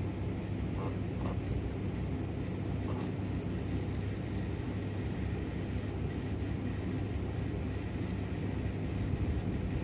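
Steady low rumble and hum, with a few faint clicks in the first three seconds.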